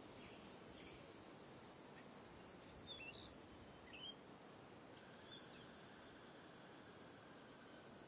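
Faint outdoor ambience: a steady hiss with a few short bird chirps in the middle.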